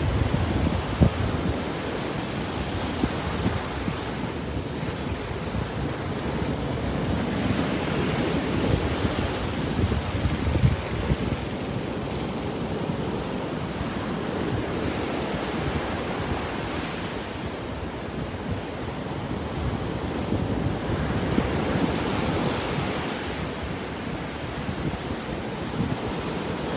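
Small surf breaking and washing up a sandy beach: a continuous rush of water that swells and eases as each wave breaks and runs up the sand. Wind buffets the microphone now and then with a low rumble.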